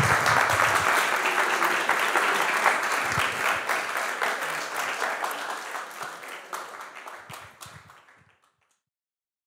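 Audience applauding, a dense patter of many hands clapping that gradually fades out about eight seconds in.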